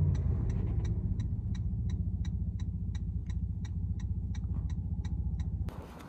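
Steady low rumble inside a car's cabin with a turn-signal indicator ticking evenly, about three clicks a second. Both stop abruptly near the end.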